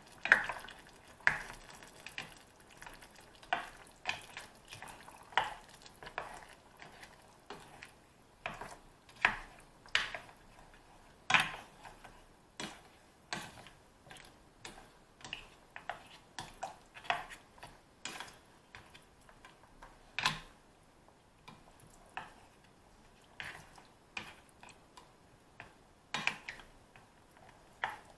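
A spatula stirring turkey stew in a stainless steel frying pan, knocking and scraping against the pan in uneven strokes about once a second.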